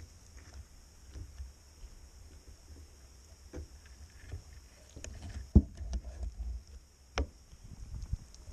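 Kayak moving on the water, with a low rumble and several sharp knocks against the hull; the loudest knock comes about five and a half seconds in.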